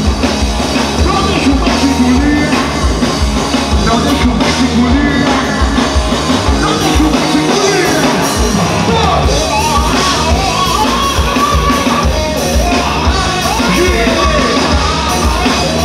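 Live rock band playing: a male vocalist singing over electric guitar, bass guitar and drums with a steady beat, through the stage PA.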